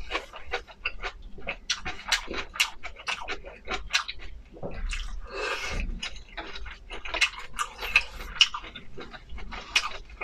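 Close-miked eating: wet chewing with many quick smacks and clicks of the mouth, and one longer slurp-like sound about five seconds in.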